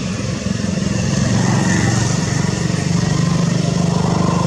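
A small engine running close by, a steady rapid low throb that grows louder about a second in.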